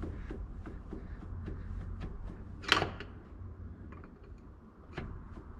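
Light, irregular clicks and knocks of hand work on a diesel engine, with one louder sharp clank a little under three seconds in, over a steady low rumble.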